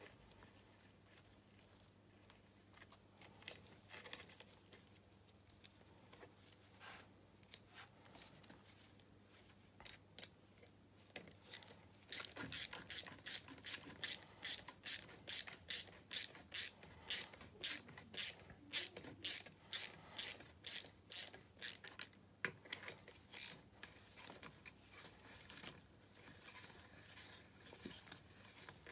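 Hand ratchet wrench tightening the bolts of an engine side cover. A few faint scattered clicks come first, then about ten seconds of steady ratchet clicking at about three clicks a second, then a few more clicks near the end.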